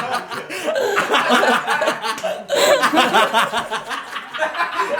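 A group of people laughing together, chuckling and snickering over one another.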